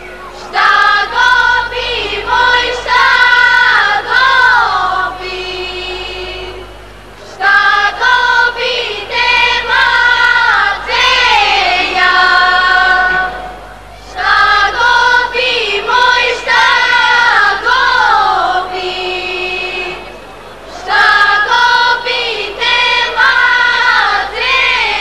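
A group of girls singing a traditional Albanian folk song together. The melody comes in repeating phrases about every six and a half seconds, each ending on a long held note, with a short breath before the next one starts.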